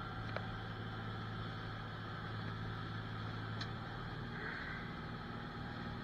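Parasail boat's engine running steadily under way: a low, even hum, with a couple of faint ticks.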